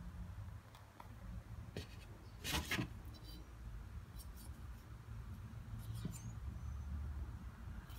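Faint handling noises of a knife being picked up from a paper surface and turned in the hand, with one short scrape about two and a half seconds in and a few light clicks, over a low steady room rumble.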